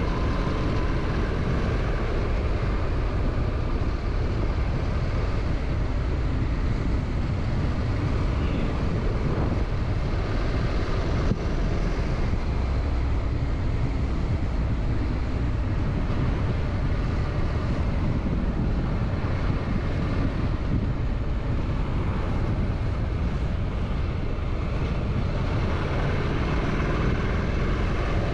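Motorcycle running at a steady cruise, its engine note under a constant rush of wind and road noise, with no gear changes or sharp revving.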